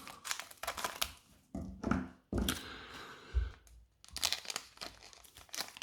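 Crinkling and tearing of a foil Pokémon booster pack wrapper being torn open, with irregular rustles and crackles and one longer tear about halfway through.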